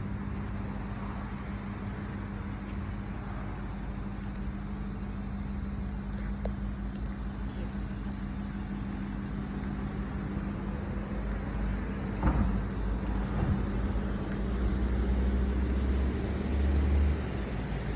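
An engine idling steadily, a constant low hum, with a low rumble that grows louder in the second half.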